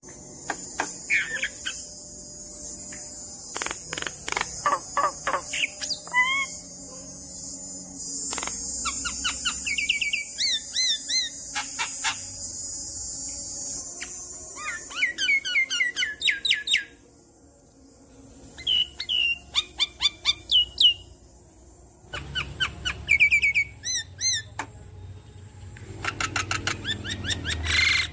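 Javan myna in full song: bursts of rapid clicking chatter mixed with whistled rising and falling notes and rasping phrases, broken by a couple of short pauses. A steady high hiss runs under the first half.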